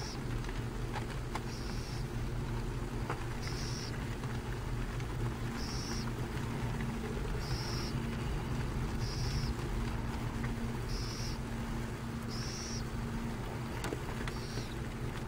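Western burrowing owl chick giving raspy, hissing begging calls, each about half a second long, repeated about every two seconds over a steady low drone.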